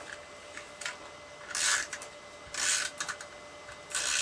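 Hands rubbing and sliding a sheet of card on a cutting mat: three short scratchy rubs about a second apart, with a few light ticks of handling in between.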